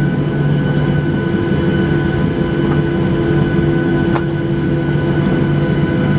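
Steady hum of the cabin air-conditioning inside a Boeing 737-800 parked at the gate, with several steady whining tones over the rushing air. A faint click about four seconds in.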